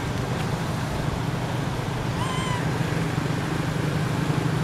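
A baby macaque gives one short, high coo call a little over two seconds in, rising and then dipping slightly, over a steady low background rumble.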